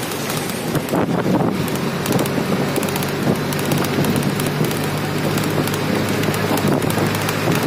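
Wind rushing over the microphone at the open window of a moving road vehicle, with the steady hum of its engine and tyres on the road underneath.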